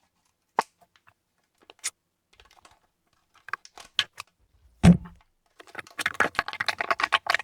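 Packaging being opened by hand: scattered light clicks and taps, a single heavier thump about five seconds in, then a dense run of crinkling and clicking near the end.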